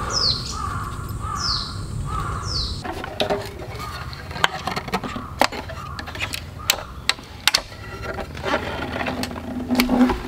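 A bird calls four times, about once a second, each call falling in pitch. It stops abruptly about three seconds in, and irregular sharp wooden clacks and knocks follow as the slats and frame of a HILLS FIELD 'Ore no MOKKIN' walnut folding camp table are unfolded and set in place.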